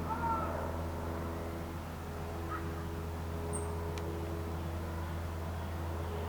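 Steady low rumble of traffic, with a few short bird calls over it: one right at the start, a small chirp midway and a brief high whistle a little later.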